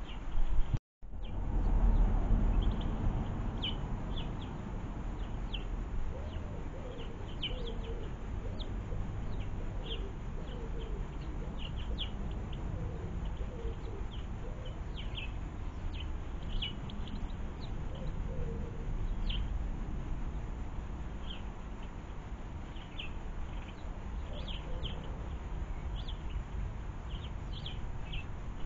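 Small garden birds chirping in short high calls throughout, with soft warbling pigeon coos from about six seconds in. A steady low rumble runs underneath, and the sound drops out completely for a moment about a second in.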